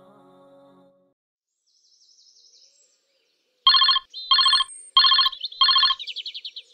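Telephone ringtone sound effect: four short electronic rings about two-thirds of a second apart, beginning a little past halfway, followed by a high twittering of birds. The last notes of music fade out in the first second.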